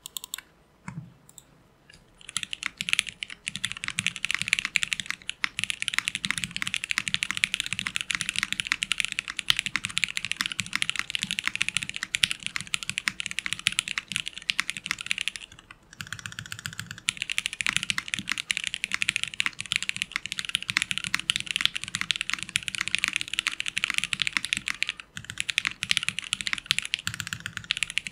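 Sound test of an acrylic gasket-mount Alice-layout ergonomic mechanical keyboard: a few single key presses, then fast continuous typing, pausing briefly about halfway through. The plate is not very thin, so the typing sound is dense.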